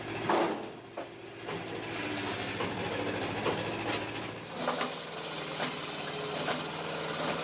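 A wood-splitting machine running with a steady hum, with repeated knocks and cracks of wood being split. The hum changes pitch about four and a half seconds in.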